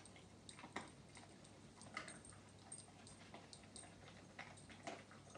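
Faint short sniffs and snuffles from a dog nosing along the floor to find hidden treats, with small clicks between them. The strongest sniffs come about a second in, at two seconds, and near the end.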